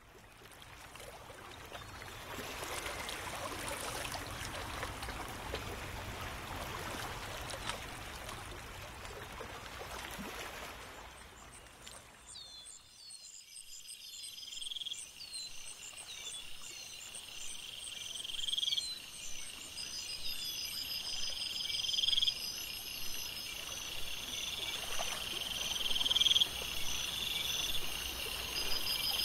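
Ambient nature soundscape. A hiss of flowing water fades in and dies away about twelve seconds in. Then comes a chorus of frogs and insects, one short call repeating every second or two over steady high trilling.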